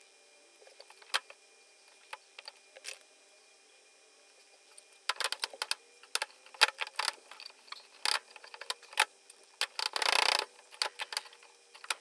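Wooden cabinet drawer being handled: a few light clicks at first, then from about five seconds in a run of knocks and clicks as the drawer and its knob are worked, with a short scraping slide near the end.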